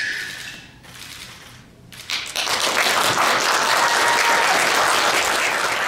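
The last notes of the music die away, and about two seconds in an audience begins applauding, a dense steady clapping.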